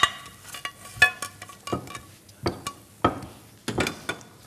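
A spatula clinking and knocking against a plate and frying pans: a string of sharp clinks, about a dozen. The first, right at the start, is the loudest and rings briefly.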